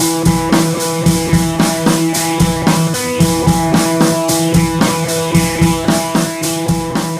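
Background music: an upbeat band track with a steady drum-kit beat and guitar.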